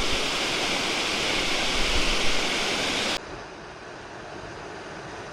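Waterfall rushing loudly and steadily. About three seconds in it cuts off abruptly to a quieter, duller steady rush.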